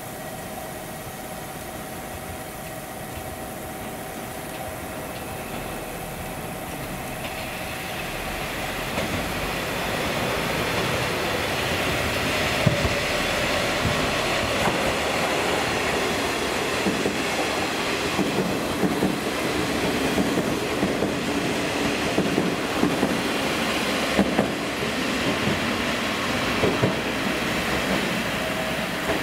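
Four-car KiHa 40-series diesel railcar set (KiHa 47 and KiHa 147) running past: a steady engine hum at first, growing louder about eight seconds in, then the wheels clicking repeatedly over rail joints as the cars go by.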